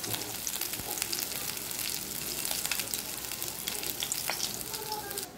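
Hot mustard oil sizzling in an iron kadai as fried tangra fish are lifted out of it, with a few light clicks.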